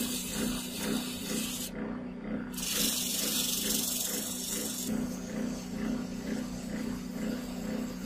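Metal lathe running with a steady hum and a slight regular pulse while a cloth is pressed against a spinning brass-rimmed disc. The rubbing makes a loud hiss that comes and goes twice, then carries on more softly.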